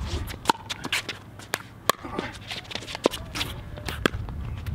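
A doubles pickleball rally: paddles striking a hollow plastic ball in sharp, hollow pops roughly once a second, some with a short ring, with shoes scuffing on the hard court between shots.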